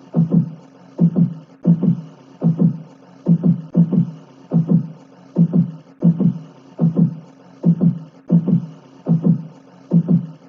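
Heartbeat sound effect: a steady lub-dub, a pair of low thumps about every three-quarters of a second, over a faint hiss.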